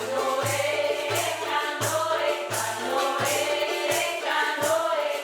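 Voices singing a chant together over a steady low drum beat, about three beats every two seconds, as part of a prayer song.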